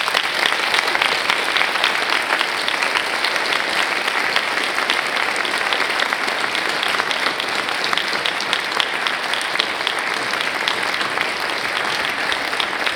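Audience applauding: many people clapping steadily together, easing off a little near the end.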